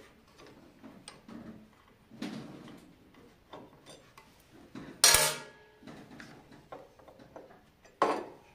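Metal clicks and clinks of a hex key working the knife-clamp screws and clamping plate on a thickness planer's cutterhead. Two louder, ringing metal clanks come about five and eight seconds in.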